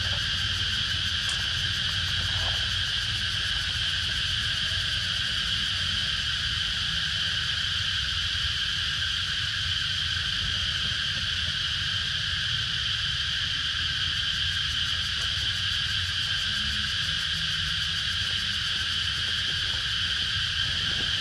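Steady, unbroken drone of forest insects, with a low rumble underneath.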